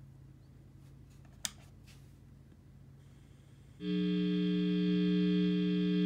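Blackstar ID:Core guitar amplifier giving a sudden loud, steady mains hum, about four seconds in, picked up through a small film capacitor on its input as the capacitor's lead is touched. The hum's loudness is the test of which end of the capacitor is the outer foil. Before it there is only faint hiss and one sharp click.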